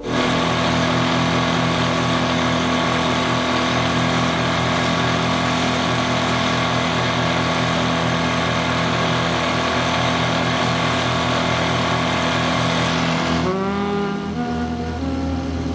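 Outboard motor of a small open motorboat running steadily at speed, with the rush of water and wind over it. About 13.5 seconds in the engine note rises and the rushing hiss falls away.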